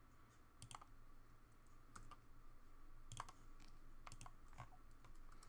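A handful of faint, scattered clicks of a computer mouse and keyboard, some in quick pairs, over a faint steady hum.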